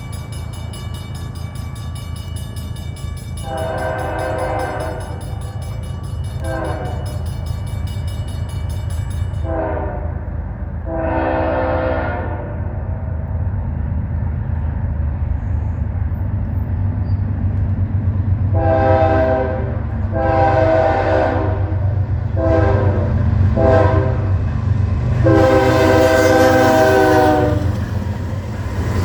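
Norfolk Southern diesel freight locomotives' multi-chime air horn sounding two grade-crossing sequences of long and short blasts, the last blast long, over the steady low rumble of the approaching locomotives and train, which grows louder. A high, rapid ringing stops about nine seconds in.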